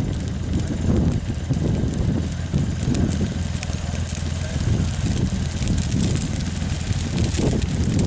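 Dry prairie grass burning in a prescribed burn: the fire crackles steadily over a low, gusty rush of wind buffeting the microphone.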